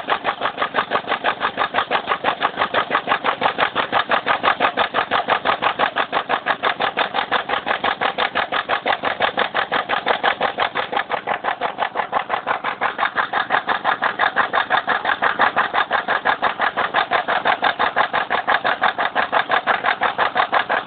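Subaru EJ204 flat-four engine idling with a rapid, even knock, about six or seven a second. The knock comes from the timing belt tensioner, which the owner first took for the No. 4 piston; it shows only while the engine is cold.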